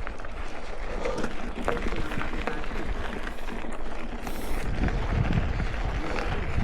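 Riding noise of a mountain bike on a trail, picked up by a chest-mounted camera: wind rumbling on the microphone with scattered knocks and rattles from the bike. The rumble grows heavier about five seconds in.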